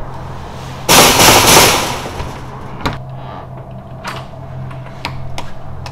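Rapid, loud pounding on a door for about a second, followed by a few single sharp knocks, over a low steady hum.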